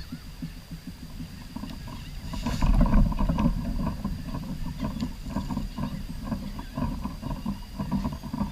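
A fishing cast from a kayak with a whoosh about two and a half seconds in, then the reel being cranked in with a run of regular ticks over a low rumble of the hull and water.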